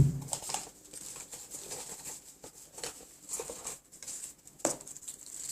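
A single sharp thump, then light scattered rustling and tapping as objects are handled.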